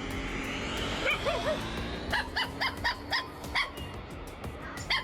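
A small dog yapping: a few soft yips, then a quick run of short, high barks, about four or five a second, over background music.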